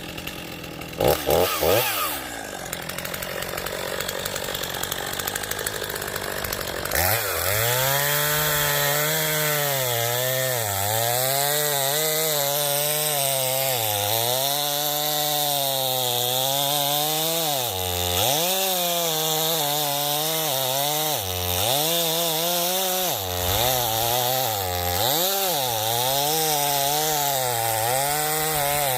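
Two-stroke chainsaw idling, revved briefly about a second in. From about seven seconds it runs at high revs cutting a felling notch into a tree trunk, its pitch dipping again and again as the chain bites into the wood and recovering between bites.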